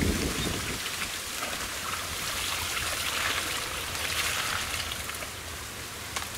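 Muddy water pattering and splashing off a plastic crate as it is lifted out of pond mud and tipped into another crate of fish.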